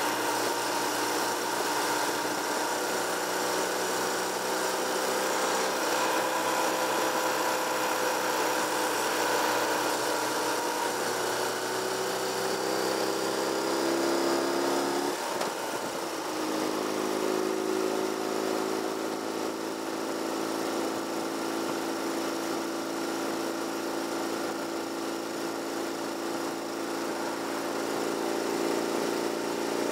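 Car engine and road noise heard from inside the cabin while driving. The engine note climbs gradually, breaks off about halfway through, and then runs steady.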